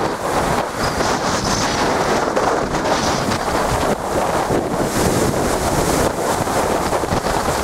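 Strong wind buffeting the microphone over the steady wash of storm waves breaking against a brick sea wall and pouring back off it.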